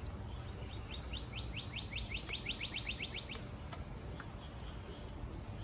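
A bird singing one trill of about fifteen quick, upward-slurred chirps that speed up and grow louder, lasting about two and a half seconds.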